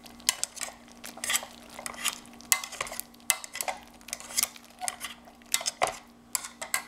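Wire potato masher clacking and scraping against a stainless steel saucepan as it mashes potatoes in a thick soup, in irregular knocks about three a second, over a low steady hum.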